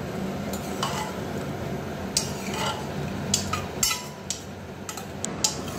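Metal spoon stirring diced potatoes and tomato in a pressure cooker, scraping and clinking irregularly against the pot's metal sides and base.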